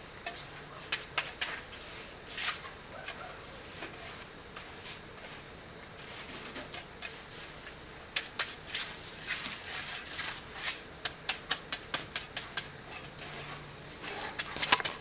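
Hand trowel scraping and slapping across wet concrete in quick repeated strokes, coming in runs of several strokes a second, the sharpest near the end.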